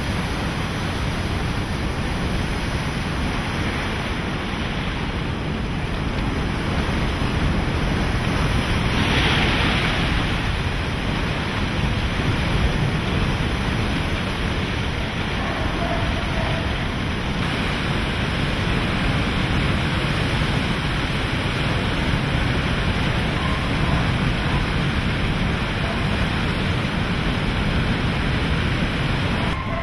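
Hurricane wind and storm-surge water rushing and churning, a continuous heavy noise that swells briefly about nine seconds in.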